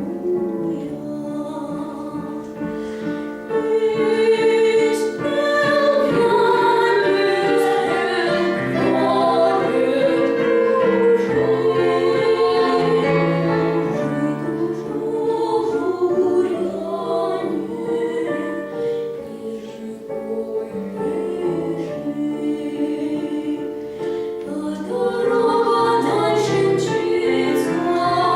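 A vocal duet singing a song with instrumental accompaniment.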